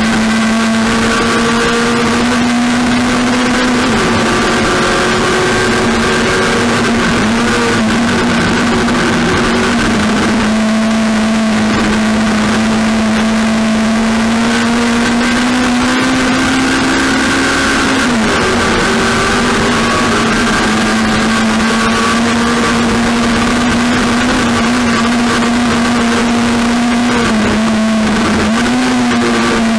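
Several race car engines running at sustained high revs, their pitch held steady and dipping briefly twice as they lift off.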